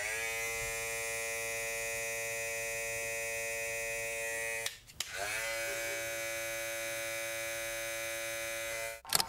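BaBylissPRO LoPro FX One red cordless clipper with a brushless motor switched on and running with a steady hum, switched off after about four and a half seconds. Then the gray LoPro FX One clipper switched on and runs for about four seconds at a slightly lower pitch. Each clipper rises briefly in pitch as it spins up.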